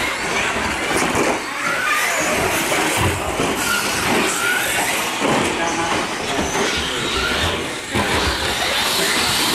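Radio-controlled short-course trucks racing past close by, their electric motors whining up and down in pitch as they accelerate and brake, over steady tyre noise, with a few sharp knocks.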